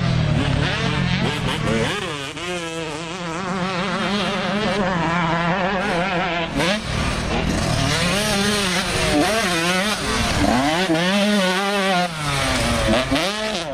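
Motocross dirt bike engines revving hard, the pitch rising and falling again and again as the throttle is opened and shut over the jumps, with another bike's engine running more steadily underneath.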